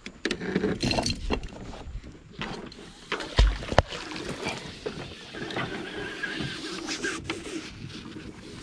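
Rope hauled in hand over hand over the side of a small boat, with scattered knocks and bumps against the hull and one loud thump about three and a half seconds in.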